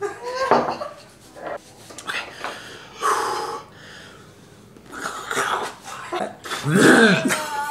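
A man gagging and coughing with heavy, wheezing breaths, then a loud falling groan near the end: his reaction to the fishy, waxy taste of dried gray mullet roe.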